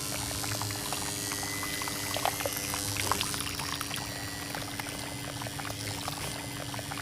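Water pouring and splashing steadily, with the even hum of a small electric motor running under it.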